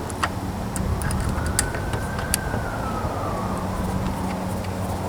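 An emergency-vehicle siren wailing, its pitch slowly rising and falling, over a steady low hum, with a few sharp clicks in the first half.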